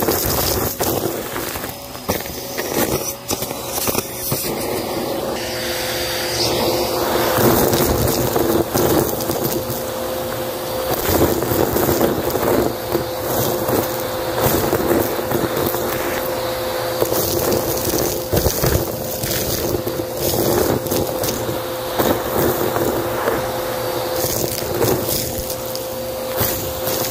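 Vacuum cleaner running with a steady motor whine, its crevice tool sucking up a pile of confetti, sequins, beads and foam bits from carpet, the debris crackling and rattling up the wand in a constant stream of clicks.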